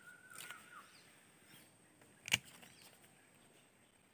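Quiet outdoor ambience with faint bird chirps and a steady high whistling tone that fades out within the first second. One sharp click a little over two seconds in is the loudest sound.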